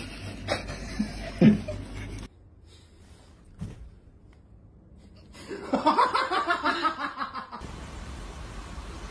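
A person laughing in quick pulses for about two seconds, starting a little past the middle. Near the start come a few short sharp sounds, the loudest about one and a half seconds in.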